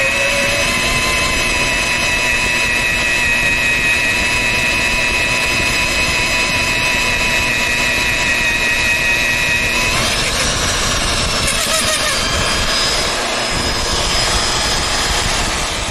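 VEVOR 1550 W magnetic drill press motor running under load, driving a 2-inch carbide-tipped annular cutter through 1/2-inch mild steel with a steady whine. About ten seconds in the tones shift and a higher whine takes over.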